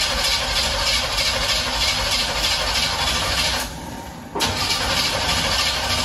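V8 engine in a long-parked old Toyota pickup being started after its electric fuel pump is switched on. The sound drops away for under a second partway through, then comes back abruptly.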